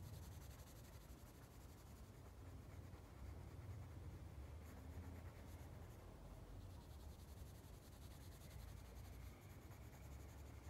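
Faint scratching of a pencil on sketchbook paper: repeated shading strokes laying in a dark, hard-edged shadow.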